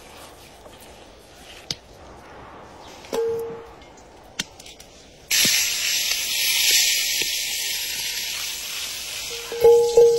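Beef steak sizzling in hot oil in a black skillet over a campfire: a loud, even hiss that starts suddenly about halfway through. Near the end there are a few ringing metal knocks as potato pieces are slid into the pan and hit the skillet.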